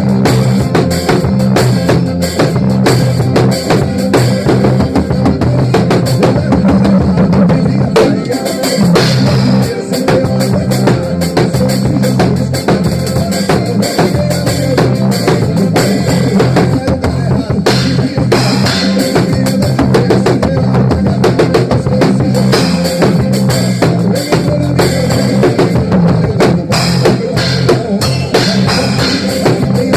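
Drum kit played along with a recorded song: steady kick, snare and rimshot hits over the track's stepping bass line.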